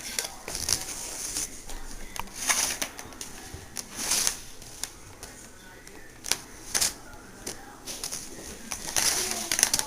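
Irregular clicks, knocks and rustling of a vacuum cleaner being handled, its plastic parts and cord fiddled with by hand.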